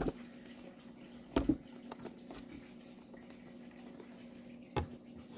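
A cardboard box and its packaging being handled as it is opened, with a few sharp taps and clicks, the loudest about a second and a half in, over a faint steady low hum.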